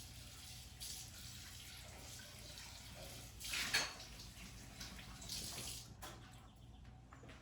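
Kitchen sink tap running water into a mixing bowl as it is rinsed out, with a louder gush a few seconds in and again shortly after.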